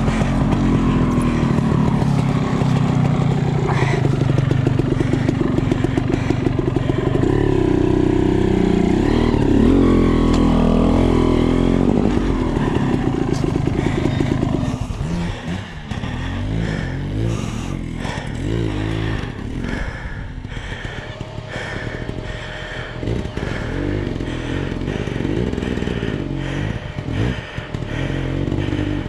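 Off-road dirt bike engine revving up and down under load, loud through the first half. About halfway it drops to a quieter, lower running with short revs, and a second dirt bike's engine joins near the end.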